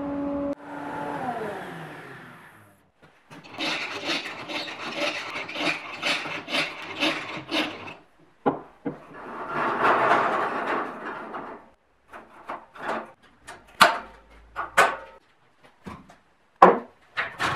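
Metabo SPA 1200 chip and dust extractor's motor humming, then cutting out about half a second in and winding down, its pitch falling over the next two seconds. After that comes a run of rhythmic scraping and rubbing strokes, a longer rustle, and a string of light knocks and clicks.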